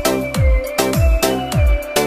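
Electronic dance track with a heavy beat: deep bass-drum hits that drop in pitch, about two a second, under a held melody line.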